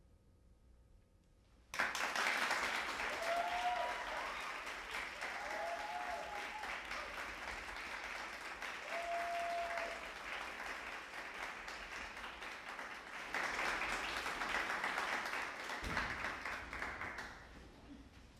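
Audience applause. After about a second and a half of hush it breaks out suddenly, eases a little, swells again for a few seconds and dies away near the end.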